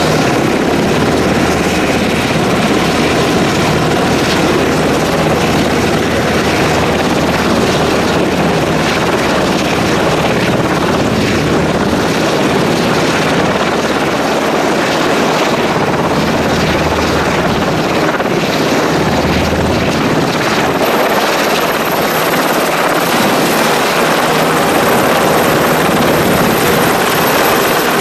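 Sikorsky Seahawk helicopter running on the ground, its twin turboshaft engines and spinning rotors making a loud, steady noise.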